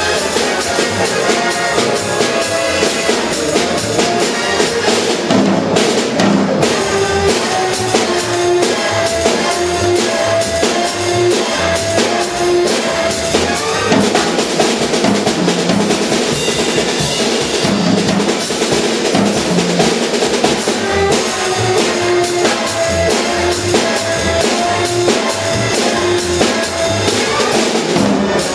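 Swing big-band music, with the horn section playing sustained riffs over busy jazz drum-kit playing: fast cymbal strokes with snare and bass-drum accents.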